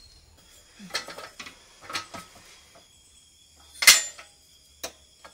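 Metal parts clinking and knocking as a motorcycle is reassembled: a few light clicks about a second and two seconds in, one loud sharp knock just before four seconds, and a softer one near the end.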